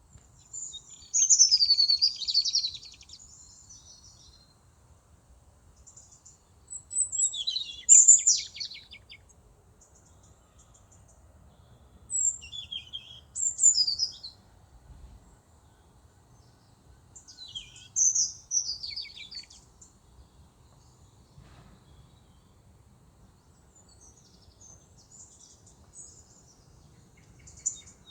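A songbird singing: four loud, high-pitched warbled phrases about five seconds apart, each about two seconds long and ending in a fast trill, with fainter song near the end.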